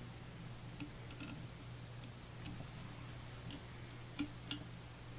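Faint, irregular light clicks and ticks, about seven in five seconds, as tying thread is wrapped tight onto the hook with a bobbin at a fly-tying vise, over a low steady hum.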